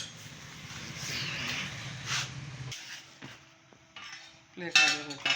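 Metal tools and engine parts clinking and scraping, with a sharp click at the start and a low hum that cuts off about halfway through.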